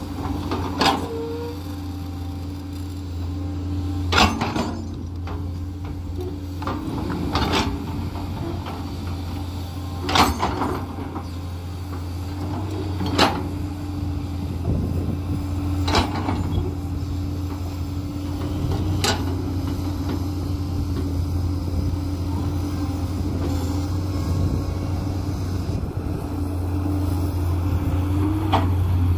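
JCB 210 tracked excavator's diesel engine running steadily while the machine digs and moves soil, with sharp knocks about every three seconds as the bucket and boom work. The engine gets a little louder near the end.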